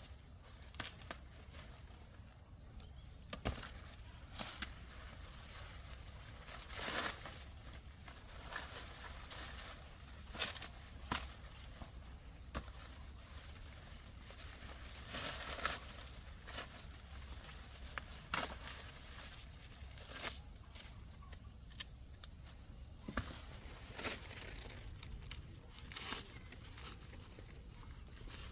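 An insect's steady high trill, made of rapid pulses, runs throughout, with scattered sharp crackles and rustles of handled plants or footsteps over it.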